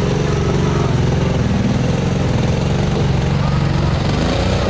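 Side-by-side UTV engine running steadily at low revs, close by.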